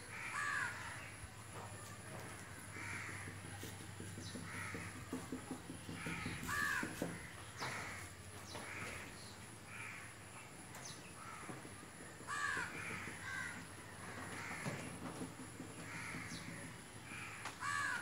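Crows cawing on and off, each harsh call falling in pitch, with a few faint taps.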